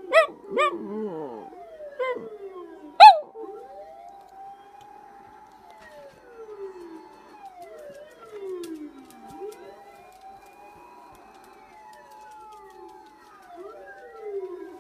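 A dog barks sharply about five times in the first three seconds, the last bark the loudest. Fire truck sirens then wail on, several at once, sweeping down and rising again in pitch.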